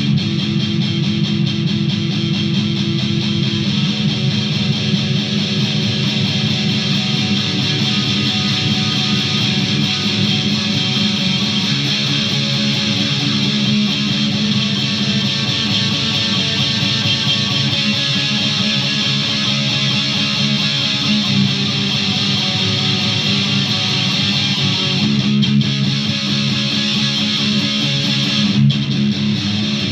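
Electric guitar played through effects pedals: a continuous run of picked notes and chords that never breaks.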